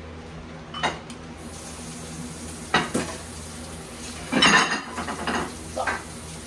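Kitchen handling noise: a few separate knocks and clinks of utensils and dishes, with a louder spell of clatter about four and a half seconds in, over a steady low hum.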